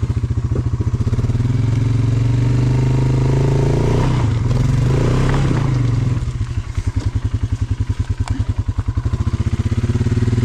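Polaris Sportsman 570 ATV's single-cylinder engine pulsing at a low idle, revved and held up under load for about five seconds from about a second in as the quad strains over rocks on a steep climb, then dropping back to idle.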